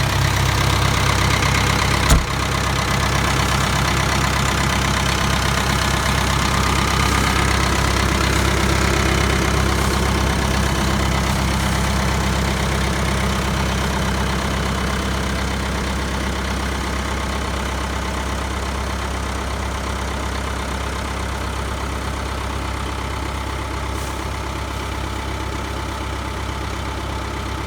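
Ford 7710 tractor's diesel engine idling steadily, with one sharp click about two seconds in.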